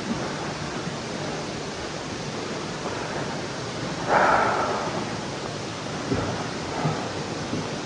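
Steady hiss, with a brief louder rustle about four seconds in and a couple of light knocks near the end.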